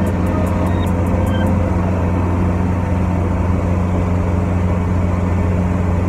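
Kubota Dynamax Rebel ER-470 combine harvester running steadily, heard from inside its cab as a constant low engine drone.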